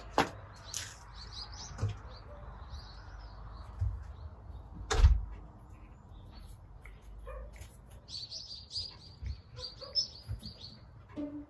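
Small birds chirping in short, high twittering runs, about a second in and again from about eight seconds until near the end. A single sharp knock comes about five seconds in.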